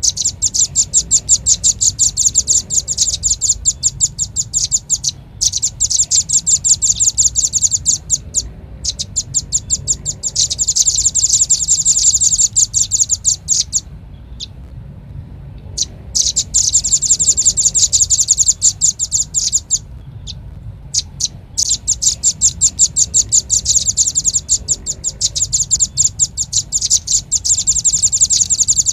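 Velvet-fronted nuthatch calling: rapid trains of sharp, high chips, many a second, in bouts of several seconds broken by short pauses. A steady low hum runs underneath.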